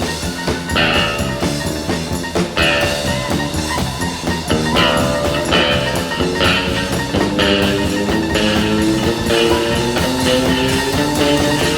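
Music with a steady drum beat and a pitched melody line.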